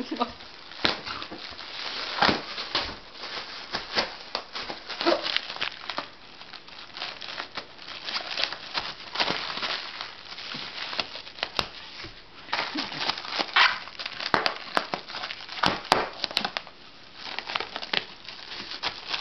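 Thin plastic air-cushion packing bags crinkling and crackling as a dog paws at them and works them with its mouth, in irregular bursts with louder flurries.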